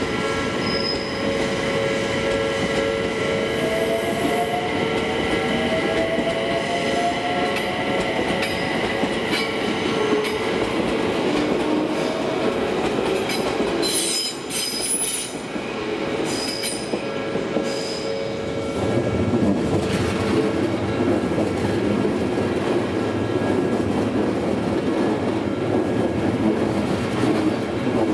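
Odakyu electric commuter trains passing slowly over a level crossing, their wheels squealing steadily. A few seconds in, an electric motor whine rises in pitch. About two-thirds of the way in, a heavier, louder wheel rumble sets in as another train comes through.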